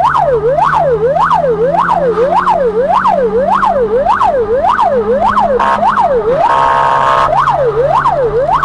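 Emergency vehicle's electronic siren yelping up and down, nearly twice a second. About two-thirds of the way in it switches to a harsh steady horn tone, once briefly and then for about a second, before the yelp resumes. Under it the vehicle's engine runs, rising slowly in pitch and then dropping.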